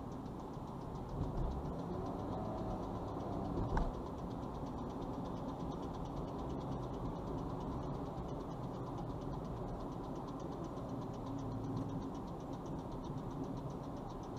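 Steady engine and road noise inside a moving car's cabin, heard through a dashcam's microphone, with one short knock about four seconds in.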